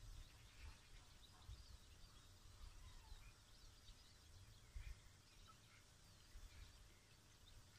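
Near silence: faint bird chirps here and there over a low, uneven rumble of light wind on the microphone.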